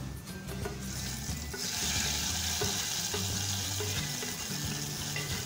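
Tempering for a fish curry: onions and curry leaves fried in hot coconut oil are tipped from a frying pan into a clay pot of curry. They set up a loud steady sizzle about a second and a half in, while a wooden spatula scrapes the pan out.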